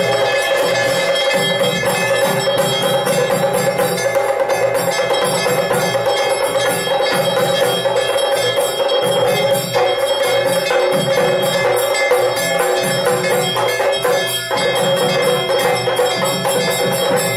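Temple bells ringing continuously during an aarti lamp offering, rapid strikes blending into a steady, loud clangour.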